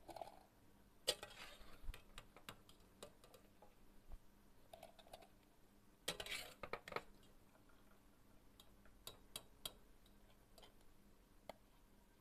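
Wire-mesh strainer knocking and scraping against the inside of a stainless steel pot while boiled chillies and onions are scooped out of the water: scattered light clinks, with the loudest run of scrapes about six seconds in.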